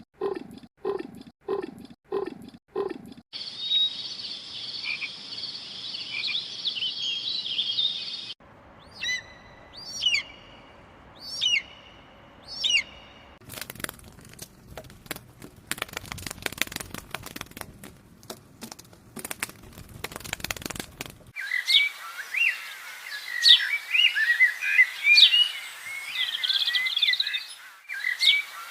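A run of separate animal sound recordings, mostly birdsong. High chattering calls come first, then about four downward-sliding whistles a second apart, then a long stretch of dense rapid clicking, and finally busy, high chirping.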